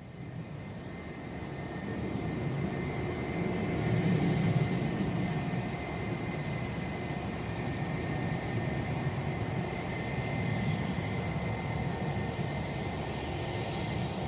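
Twin jet engines of a Boeing 767-300ER coming in to land: a steady whine over a low rumble, growing louder to a peak about four seconds in, then holding steady.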